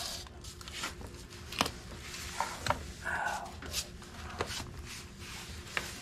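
Scattered light clicks and rustling from hands handling parts at a scooter's front disc brake caliper, over a faint steady hum.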